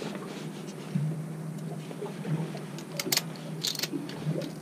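Shears snipping and cracking the legs off a small crab being cut up for bait: a few sharp clicks, most of them in the second half. Under them runs a steady low hum.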